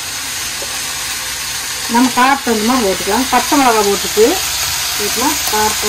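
Shredded cabbage frying in a stainless steel pan, a steady sizzling hiss. A woman talks over it from about two seconds in.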